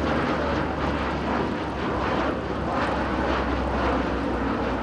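Lockheed C-130 Hercules passing low overhead, its four turboprop engines and propellers making a steady, loud drone.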